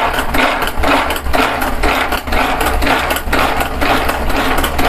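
Garlic cloves being chopped in a pull-cord mini chopper: the blades spin and rattle against the plastic bowl in repeated strokes, about two a second, with the garlic turning to fine pieces.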